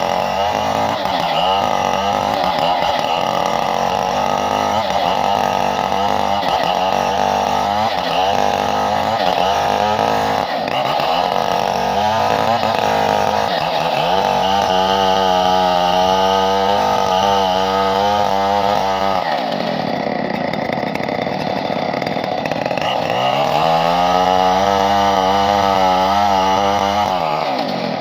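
Two-stroke chainsaw running continuously, its engine speed rising and falling repeatedly. It drops to a lower speed about two-thirds of the way through, then revs back up a few seconds later.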